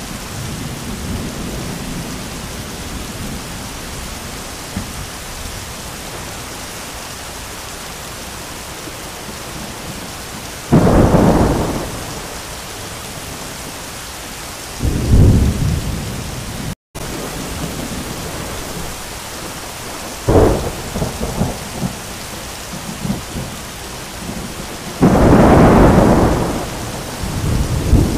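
Heavy rain pouring steadily, with sudden loud thunderclaps about 11, 15 and 20 seconds in and a longer, louder one about 25 seconds in, each rolling off over a second or two. The sound drops out for an instant about 17 seconds in.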